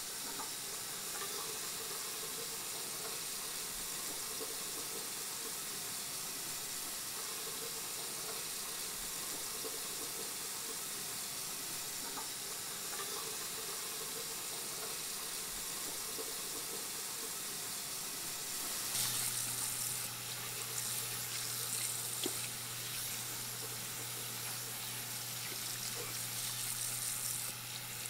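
Bathroom sink faucet running in a steady stream while hands are washed under it. About two-thirds of the way through a low steady hum comes in and the water noise grows a little louder and brighter.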